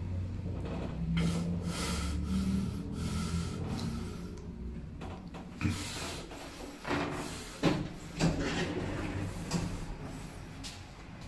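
Late-1990s AS Ascenseurs panoramic traction elevator with a low steady hum for the first few seconds. The hum fades, then a few sharp clicks and knocks come as the car's automatic sliding doors open.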